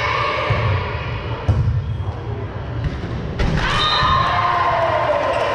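Volleyball rally in a gym: a series of dull thumps from the ball being hit and feet on the floor, with one sharp hit about a second and a half in, over crowd noise. About three and a half seconds in, spectators break into loud shouting.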